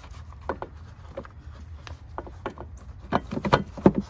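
Hard plastic air filter box lid of a 2021 Nissan Altima being worked onto its base, clicking and knocking as its tabs are pushed toward their slots. The clicks are scattered at first, then come in a quick run of louder knocks near the end.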